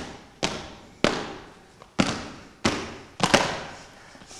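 A rhythmic run of sharp, loud body-percussion hits (stamps, claps or slaps) by performers doing a routine in unison, each ringing out in a large hall. There are about six hits, half a second to a second apart, and the last two come close together.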